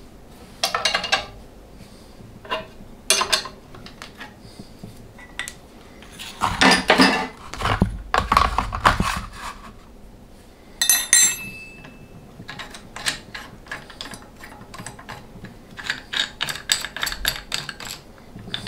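Steel tools and machine parts being handled and set down at a milling machine as the drill bit and workholding setup are taken apart: irregular clinks and clatters, with a heavier stretch of knocking and scraping around seven to nine seconds in and one ringing metallic clink about eleven seconds in.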